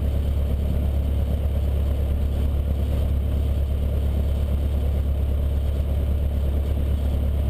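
Cessna 152's four-cylinder Lycoming engine and propeller running at taxi power, heard from inside the cabin as a steady low drone.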